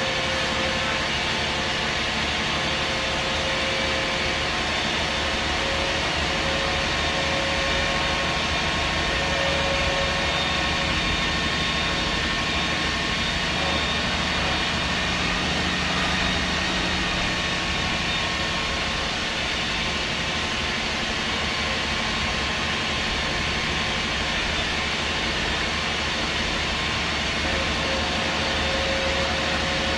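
MAN SD202 double-decker bus with its MAN D2566 MUH six-cylinder diesel and Voith Diwa 851 automatic gearbox, running steadily. Several constant whining tones sit over a low rumble.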